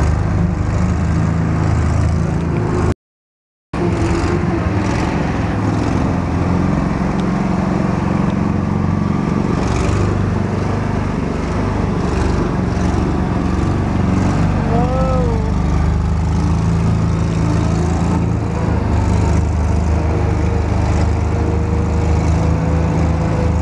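Coot ATV's engine running steadily under way, heard from on board the moving vehicle. The sound cuts out completely for under a second about three seconds in.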